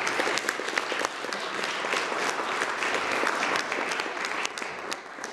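Audience applauding in a hall, a dense patter of clapping that eases off near the end.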